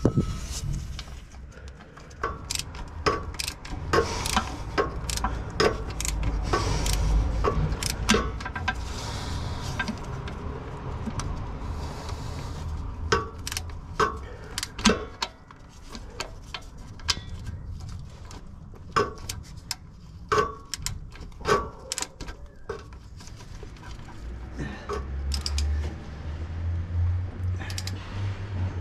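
Irregular metallic clinks and knocks of hand tools and metal parts being handled during transfer-box and axle oil work, some with a short ring. Low rumbling comes twice, once in the first quarter and once near the end.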